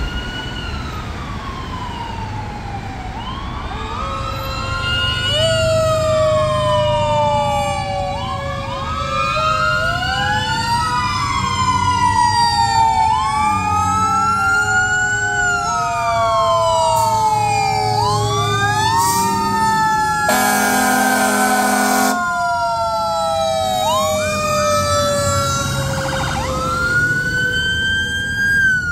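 Sirens of several fire trucks wailing together, their pitches rising and falling out of step, over a lower siren tone that slowly falls, with low engine rumble beneath. One horn blast of about two seconds sounds a little past the middle.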